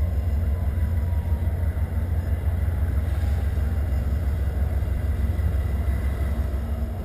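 Steady low rumble of wind buffeting the microphone, with the fainter drone of an approaching diesel locomotive beneath it.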